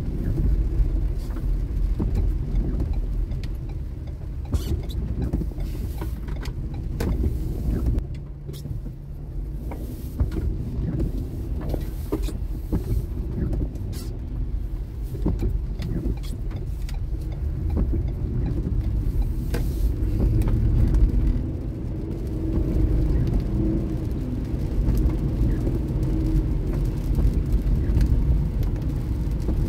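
Car driving on wet roads, heard from inside the cabin: a steady low rumble of engine and tyres, with scattered light ticks.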